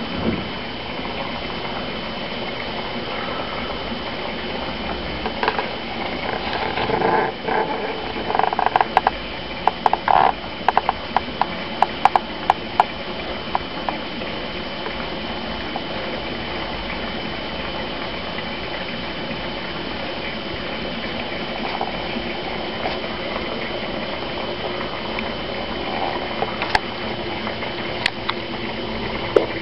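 Aquarium sponge filters running with a steady bubbling water noise and a thin steady high whine underneath. A run of irregular sharp clicks and pops comes in about six seconds in and dies away by about thirteen seconds, with a few more near the end.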